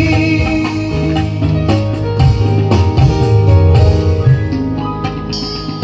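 Dangdut band music in an instrumental passage between sung lines: instruments and a steady drum rhythm, with no singing.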